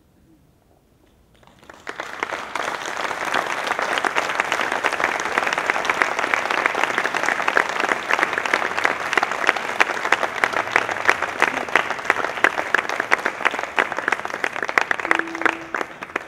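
Audience applauding: after a moment of near silence, dense clapping breaks out about two seconds in and holds steady, then starts to thin near the end as a few held musical notes come in.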